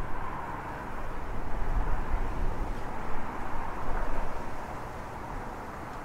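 Wind gusting through bare tree branches, a steady rushing that swells twice and eases near the end, with low rumbling from wind buffeting the microphone.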